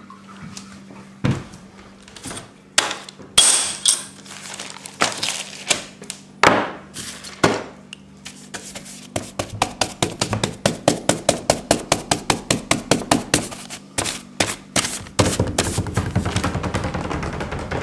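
A series of sharp knocks and clacks of hard objects, scattered at first, then a quick even run of about four a second from about nine seconds in, thickening into a dense rattle near the end.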